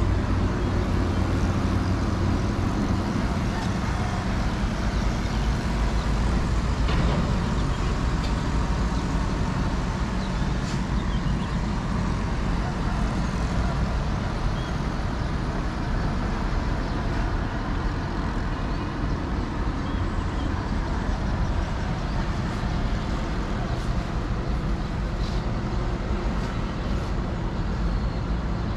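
Steady road traffic noise: a constant low rumble of trucks and cars on the roads and bridge below, with a few faint short higher sounds now and then.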